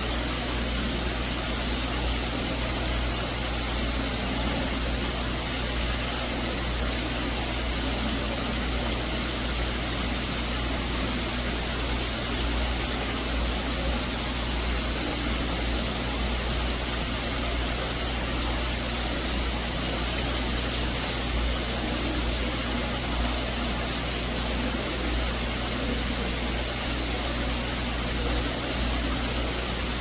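Small artificial waterfall pouring over rocks into a glass fish tank: a steady, unbroken rush and splash of falling water, with a low rumble beneath it.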